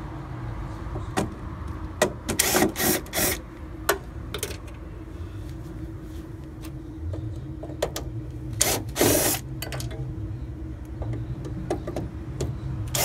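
Cordless driver run in short trigger pulses, backing out the screws of a condenser fan motor mount: four quick runs a couple of seconds in and one more about nine seconds in, over a steady low hum.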